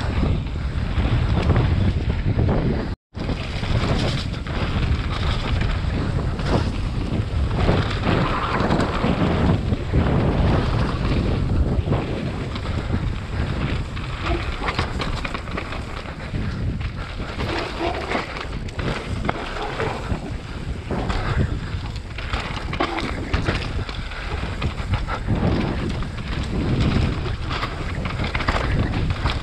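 Wind noise on the microphone during a fast mountain-bike descent, with tyres rolling over dirt and rock and the bike knocking and rattling over bumps. The sound cuts out completely for a split second about three seconds in.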